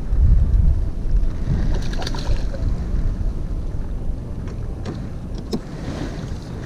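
Wind buffeting the microphone as a low rumble, with a hooked crucian carp splashing at the water's surface about two seconds in and a few light clicks near the end.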